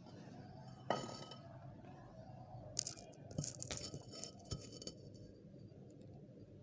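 A sharp clink about a second in, then two seconds of irregular crackling, as of a plastic courier mailer bag being handled.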